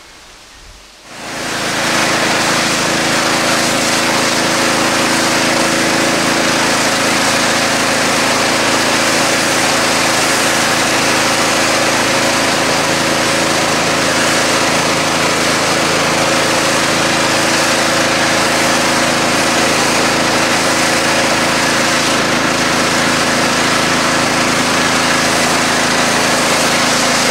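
Pressure washer running steadily, its high-pressure spray hissing on the asphalt driveway. It starts about a second in.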